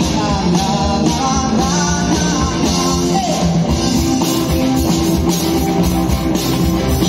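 Live rock band playing: a man singing over electric guitar, bass guitar and drum kit, with a steady beat.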